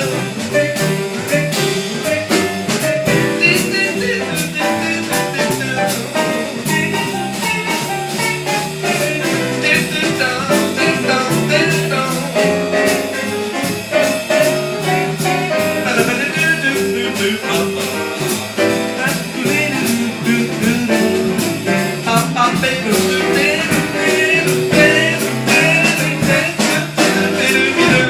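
Live jazz band playing an instrumental passage, with the drummer's cymbals and drums keeping a steady beat under the melody.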